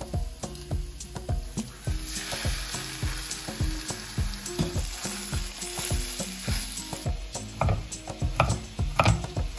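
Minced beef and chopped onion sizzling in a frying pan, a steady hiss lasting about five seconds. Near the end a kitchen knife chops garlic on a wooden cutting board in a quick run of sharp knocks.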